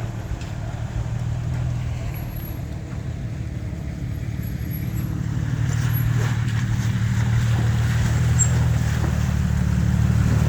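An off-road vehicle's engine running steadily in a river crossing, with a rushing, splashing water noise that builds and gets louder over the second half.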